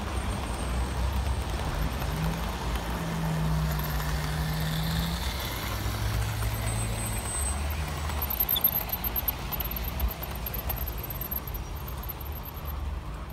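OO gauge model diesel locomotives running on outdoor track: a steady low hum, with a run of sharp clicks from the wheels about 8 to 10 seconds in.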